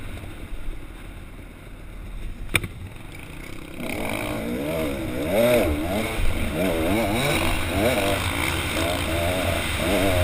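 Dirt bike engine running low and quiet at first, then revving up and down over and over from about four seconds in as the throttle is worked on the trail. One sharp click about two and a half seconds in.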